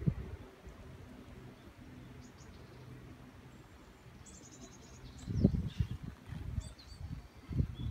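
Outdoor ambience: faint high chirps over a low steady hum, with a quick run of chirps about four seconds in. There are a few low bumps in the last few seconds.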